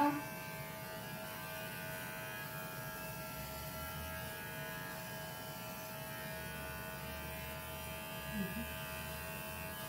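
Small electric pet grooming trimmer running steadily at a dog's paw: an even buzzing hum that holds one pitch throughout.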